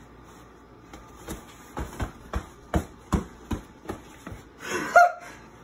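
Boxing-glove punches landing: about ten dull, quick thumps in an uneven run. A short, high squeal near the end, bending up and then down in pitch, is the loudest sound.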